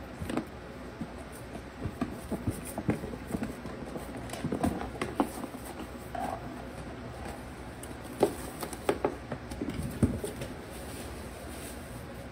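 Puppies scrambling about a plastic toy playhouse: irregular scuffs, taps and knocks of paws and bodies against hollow plastic and on shredded newspaper, with a few louder knocks in the second half.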